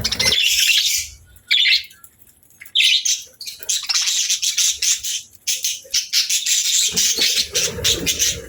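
Small pet parrots chirping and chattering in quick, high-pitched bursts with short pauses. A low noise joins the chirps for the last second and a half or so.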